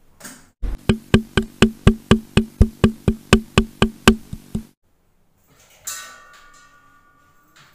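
Edited-in rhythmic percussion: sharp wood-block-like strikes, about four a second, for about four seconds. After a short pause comes a ringing chime-like tone of several pitches that fades away.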